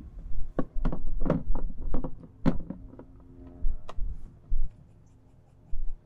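A quick run of sharp knocks and clicks, about nine in the first four seconds, from hands working at the roof of a John Deere combine's cab, with low gusty rumbles of wind on the microphone.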